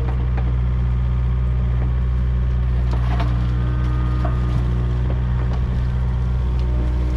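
Kubota KX057 mini excavator's diesel engine running steadily under work, with scattered cracks and snaps of wood and brush breaking.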